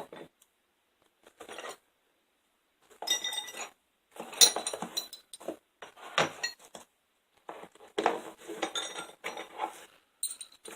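Steel hand tools, such as roll pin punches, clinking and clattering against one another as they are handled and set down, in several separate bursts of ringing metal clinks, the loudest about four and a half seconds in.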